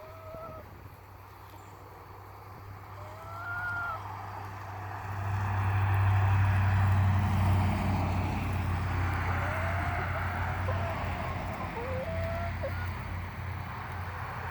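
Chickens giving a few short, curving clucks and squawks over a steady low engine hum that swells about five seconds in and slowly eases off.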